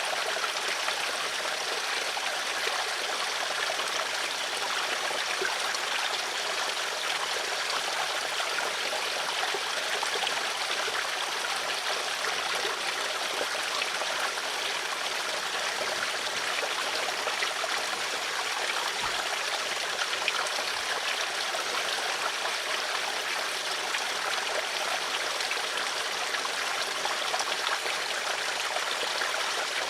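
Stream water flowing steadily over stones, a constant babbling and trickling rush.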